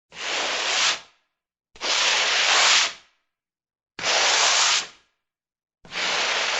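Four separate bursts of hissing noise, each about a second long with a sudden start and a quick fade, separated by complete silence; the fourth begins near the end and is still going.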